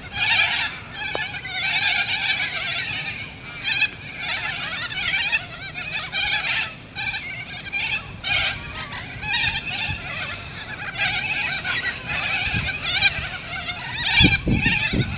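A large flock of corellas screeching continuously, many harsh calls overlapping into a dense shrill din. A few low thuds come near the end.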